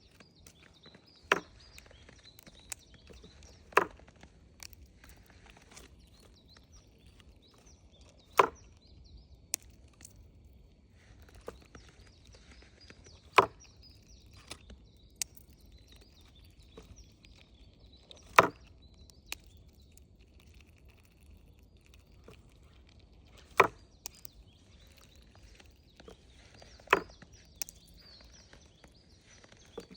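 Sudden sharp knocks or cracks, seven loud ones a few seconds apart at uneven spacing, with fainter ones in between, over a faint outdoor background.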